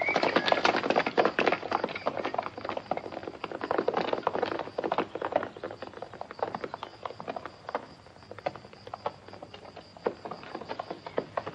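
Horses galloping, a fast, dense patter of hoofbeats that thins out and grows fainter after about halfway.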